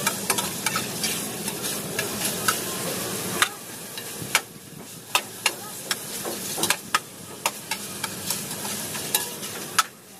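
Food frying and sizzling in a small saucepan while a spatula stirs it, tapping and scraping against the pot in sharp irregular clicks. The sizzle drops down about three and a half seconds in, while the taps go on.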